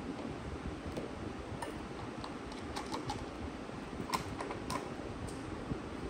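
Scattered light clicks and taps of red parallel bar clamps being handled and screwed down on a glued-up wood panel, over a steady low background hum.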